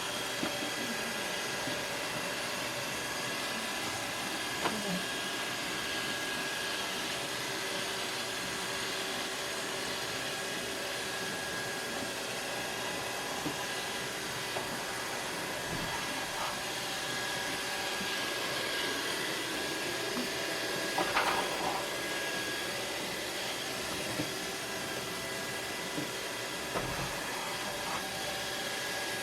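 iRobot Roomba 665 robot vacuum running, with the steady whir of its vacuum motor and brushes. Short knocks come now and then, a small cluster about two-thirds of the way through, as its bumper meets the obstacles hemming it in.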